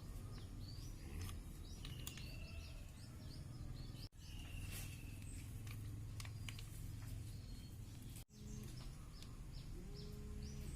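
Small birds chirping: many short, quick downward calls repeated over and over, with a couple of longer steady whistles, over a low background hum. The sound cuts out briefly twice.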